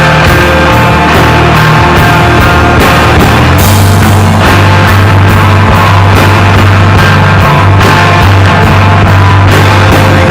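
A rock band of guitars and drums playing loudly, with sustained guitar and bass notes over a steady drum beat; the low note shifts about four seconds in.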